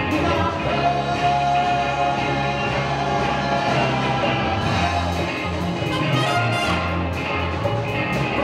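Live funk band playing: electric guitars, bass guitar, drum kit and a trumpet and trombone horn section, with a steady bass line and a singer's voice over it.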